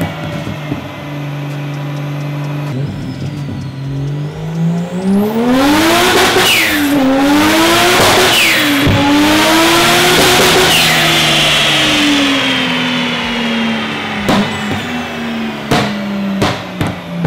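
1JZ inline-six engine in a 350Z on a dyno pull. It starts at idle, then the revs climb hard, dip sharply twice around the middle, and wind down slowly back to idle. A few sharp cracks follow near the end.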